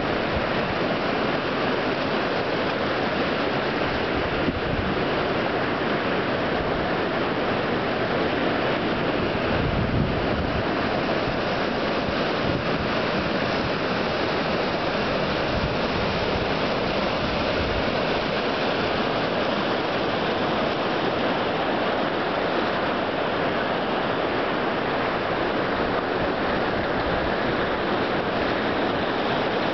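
Ocean surf breaking and washing among shoreline rocks: a steady rush of water, with a few low gusts of wind on the microphone.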